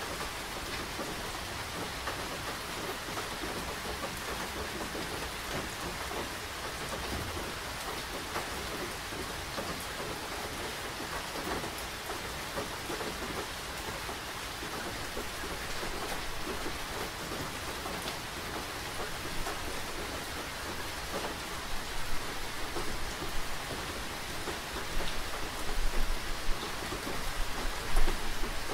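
Steady rain falling, an even hiss with many drops. Near the end a low rumble comes in and the sound swells unevenly.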